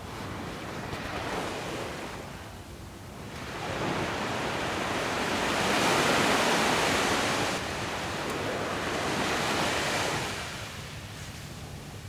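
Sea surf washing onto a sandy beach: a small wave about a second in, then a bigger wave that swells up, holds for several seconds and fades away near the end.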